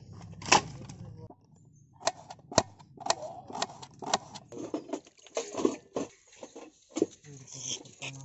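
A single loud knock about half a second in, then a knife chopping onions against a steel plate: sharp taps about twice a second, becoming quicker and more irregular later on.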